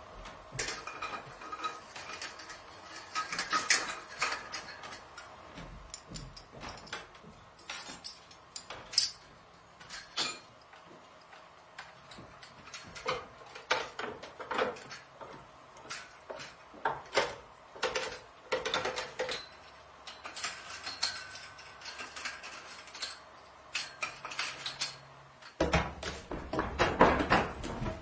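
Irregular metallic clanks, clicks and knocks as an old vertical frame saw is set up by hand with bars and tools, the saw not running. Near the end a denser, louder run of knocking and rumbling.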